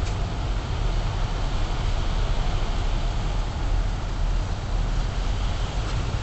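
Steady background noise from a wireless surveillance camera's microphone: a low hum under an even hiss, with no distinct events.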